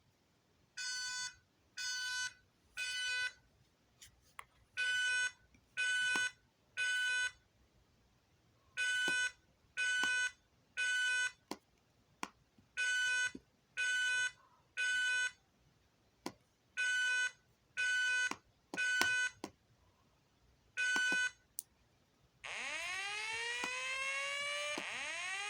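Fire alarm speaker sounding a voice-evacuation alert tone: a buzzy beep in the temporal-three evacuation pattern, three half-second beeps and a pause, repeated five times, then a single beep. About 22 seconds in it switches to a slow-whoop tone, a rising sweep that repeats about every second and a half.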